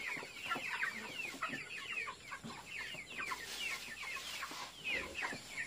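A flock of young white chickens peeping and chirping continuously, short falling calls overlapping several a second, as feed is being put out for them.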